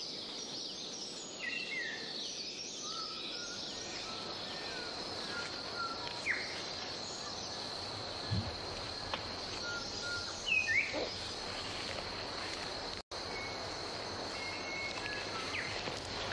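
Forest ambience: birds calling in short, scattered chirps and whistles over a steady, high insect drone. Near the end the sound cuts out for an instant.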